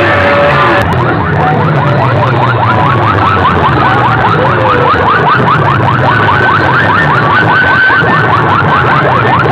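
Loud sound-system competition track: a short stretch of music cuts off under a second in, giving way to a siren-like alarm effect of rapid, evenly repeating rising chirps over a low bass line.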